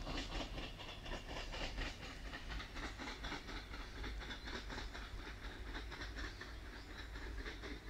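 Caledonian Sleeper train hauled by a Class 66 diesel and a Class 73 locomotive, moving off into the distance: an even clickety-clack of wheels on the rails, several clicks a second, over a low rumble, slowly fading.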